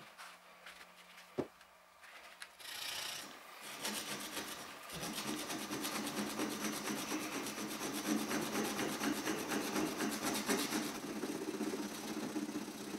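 Steel chisel blade rubbed rapidly back and forth on a flattened beach stone, a gritty scraping of metal on abrasive stone as the rusty bevel is ground. It starts about three seconds in, after a single knock about a second in.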